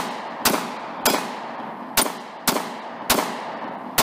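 A Sig Sauer P365 pistol fired in a quick string of about six shots, spaced half a second to a second apart, each shot trailing off into an echo.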